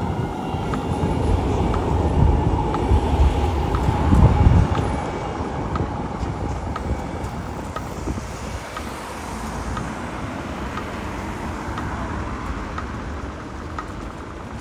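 A tram passing close by, its low rumble swelling and peaking about four seconds in and then fading into steady street traffic. A Dutch pedestrian crossing signal ticks slowly and evenly throughout, its red-phase wait tick.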